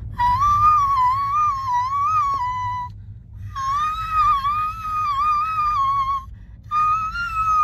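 A woman's vocal warm-up: high sung notes on an open vowel in three long phrases, each held and wavering up and down in pitch, with short breaks between them. A steady low rumble of the car runs underneath.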